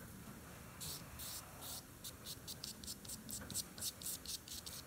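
Oil-paint brush scrubbing dark paint onto a canvas board in quick short strokes: a fast run of dry, hissy scratches, about five a second, busier from about a second in.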